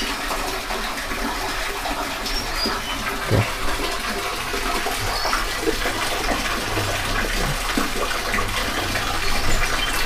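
Steady rushing noise like running water, with a few faint, short, high bird chirps.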